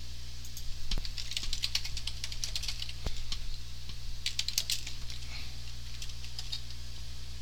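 Computer keyboard typing in two quick runs of keystrokes, about a second in and again around four seconds in, with a few single key clicks between. A steady low hum runs underneath.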